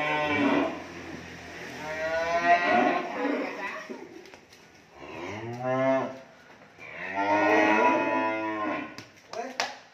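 Cattle mooing: about four long moos, one after another, one of them dropping in pitch. A few sharp taps come near the end.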